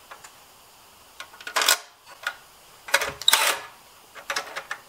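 Cordless impact driver run in short bursts, three times, running in the 10 mm mounting bolts of the recoil starter on a Honda GX200 engine. The second burst is the longest.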